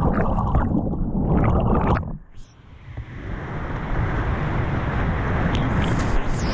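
Whitewater rushing and splashing around a kayak, heard close on a helmet camera as the boat crashes through big river waves. About two seconds in the sound drops suddenly to a muffled hush, then the rush of the rapid builds back up.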